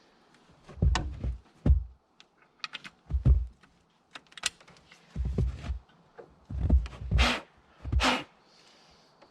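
About seven irregular dull thumps, several with sharp clicks, spaced a second or so apart, with near quiet between them.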